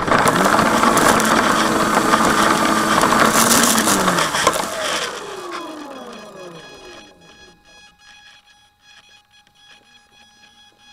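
A model plane's electric motor and propeller hum steadily under heavy rushing noise on the onboard microphone as the plane touches down in grass. About four seconds in, the motor pitch slides down and winds out over the next few seconds. A faint steady high tone is left at the end.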